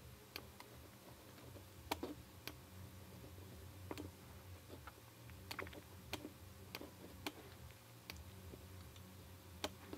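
Faint, irregular clicks of a computer mouse's buttons being pressed and released, about a dozen spread unevenly, as strokes are drawn.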